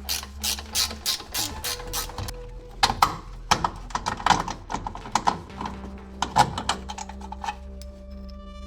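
Socket ratchet wrench clicking in repeated short strokes as a 17 mm suspension arm bolt on a Nissan 350Z is worked with it, the clicks coming in irregular bursts.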